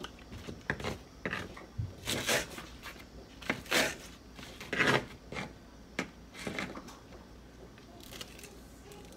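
Kitchen knife slicing through green onions on a cutting board: a dozen or so irregular crisp cuts, some ending in a sharp tap of the blade on the board.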